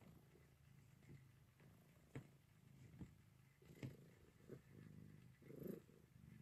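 Domestic cat purring faintly and steadily while being stroked, with a few soft clicks.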